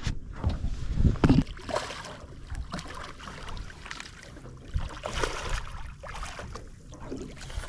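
Knocks and rustling of handling in a small fishing boat, loudest about a second in, over a low rumble of wind and water, as a catfish is being landed.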